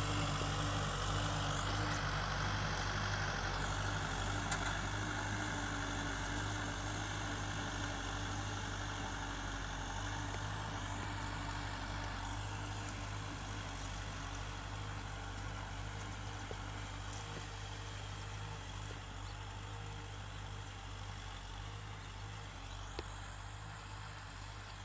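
Kubota tractor's diesel engine running steadily under a noisy mechanical wash, slowly fading as the tractor moves away.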